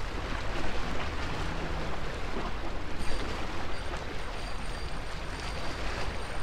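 Gusty wind rumbling on the microphone over surf washing against jetty rocks. From about three seconds in, a faint thin high whine comes and goes.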